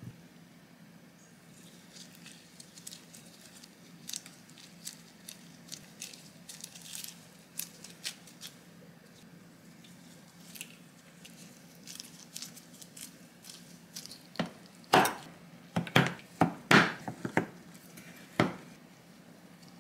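Gloved hands working soft bread dough around sausages, with faint squishes and light taps, then a kitchen knife chopping down onto a wooden end-grain cutting board in about eight sharp knocks in quick succession over a few seconds, the loudest sounds.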